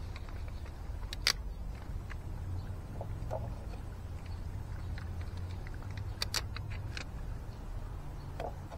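Small crackles and clicks of adhesive fastener dots being peeled from their plastic backing sheet and pressed onto a plywood board: a sharp crackle about a second in and a cluster of them a little past the middle. A steady low rumble runs underneath.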